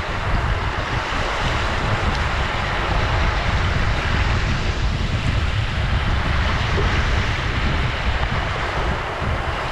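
Ocean surf washing on a shore: a continuous rush of breaking water with a low, fluttering rumble underneath, swelling slightly in the middle.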